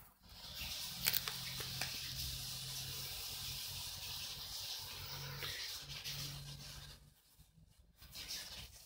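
Spectator crowd in a diving arena cheering and applauding after a dive, a dense even noise that fades out near the end, with a sharp crack about a second in.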